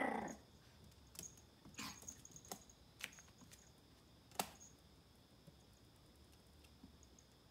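The end of a Pomeranian puppy's bark at the very start, then faint, scattered light clicks and taps, five or so over the next few seconds, as the puppy noses a plastic ball around a vinyl floor.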